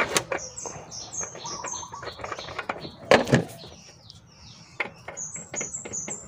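A bird chirping in the background, in runs of short, high, falling notes, over clicks and knocks from a hand fitting a new oil filter onto the engine; a loud knock about three seconds in.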